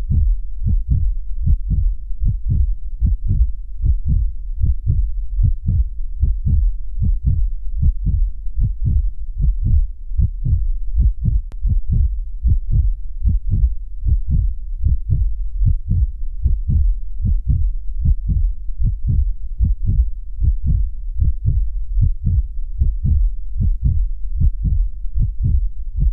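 Human heartbeat: a steady, even run of low lub-dub thuds, the sound of the heart valves closing.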